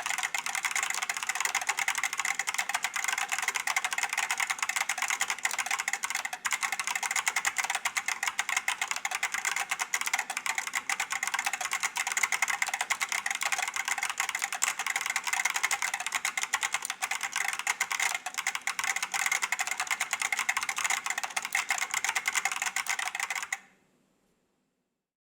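Fast, continuous typing on an IBM 5576-002 keyboard with Alps SKCP plate-spring switches: a dense stream of crisp key clicks. It stops abruptly near the end.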